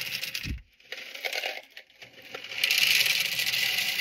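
Small hard neutralizer media beads poured from a plastic cup into the plastic canister of a condensate acid neutralizer, rattling and clattering as they fall in a stream. The pour comes in spells, stopping about half a second in and again near two seconds, and runs longest and loudest in the last second and a half.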